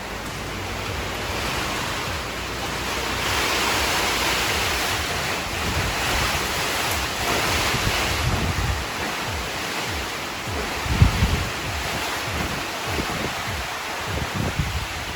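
Typhoon wind and rain in a steady loud rush that swells in a gust midway. Wind buffets the microphone in low thumps about two-thirds through.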